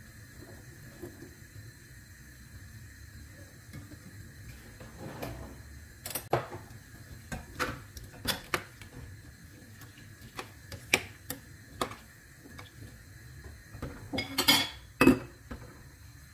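Metal ladle stirring chickpeas and vegetables in water in a stainless-steel pot, knocking and clinking against the pot's sides in a string of separate sharp clinks. Near the end comes a quick run of clatters as the glass lid with its steel rim is set on the pot.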